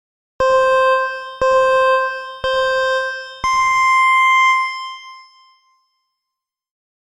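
Electronic countdown beep sound effect: three beeps a second apart on one pitch, then a longer beep an octave higher that fades away, like a race-start signal.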